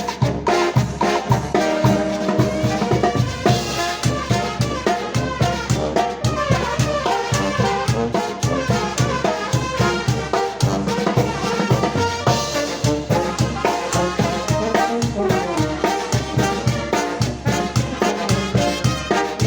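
Mexican brass band playing a cumbia: brass horns over a steady, even drum beat.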